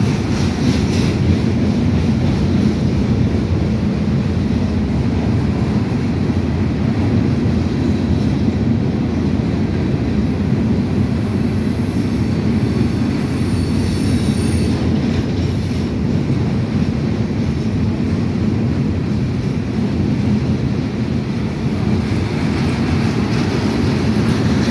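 Empty open-top freight hopper cars rolling past, a steady rumble of steel wheels on the rails. A faint high wheel squeal rises over it about halfway through.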